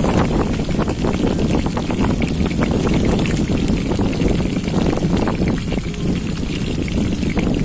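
Fish frying in hot oil: a steady bubbling sizzle dotted with small crackles.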